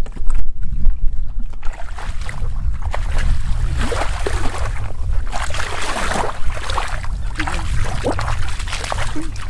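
Bare feet wading through shallow muddy water, splashing and sloshing with each step, loudest in the middle of the stretch, over a steady low rumble.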